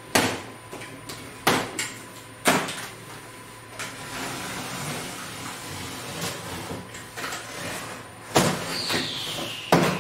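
A large cardboard box being cut open with a small box cutter: about five sharp cracks as the packing straps and tape give way, with cardboard rustling and scraping between them and a falling squeal near the end.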